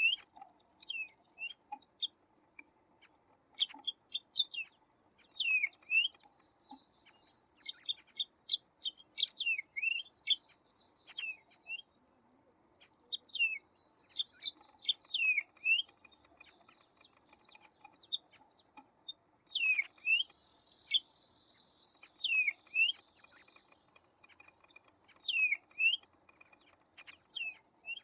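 Several birds calling and chirping, with high sharp chirps and repeated short swooping calls coming in quick bursts with brief pauses between them.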